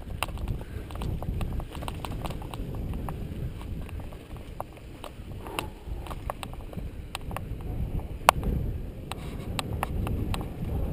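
Mountain bike rolling down a dirt singletrack: a steady low rumble with many irregular clicks and rattles as it jolts over bumps and small stones, and one sharp knock about eight seconds in.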